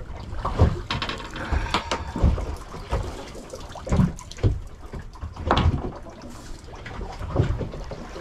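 Water slapping around a small boat's hull and wind on the microphone, with a series of irregular low knocks and thumps as a fish is hauled in over the side.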